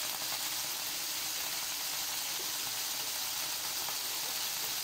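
Kefta (minced-meat patties) sizzling steadily in their own rendered fat in an electric frying pan used without added oil: an even hiss.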